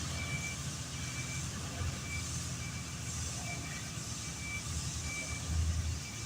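A heavy construction vehicle's reversing alarm beeps repeatedly over the low, steady running of its diesel engine.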